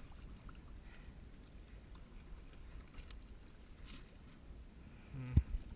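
Faint low rumble of wind and water around a drifting boat, with one sharp knock a little over five seconds in, the loudest sound.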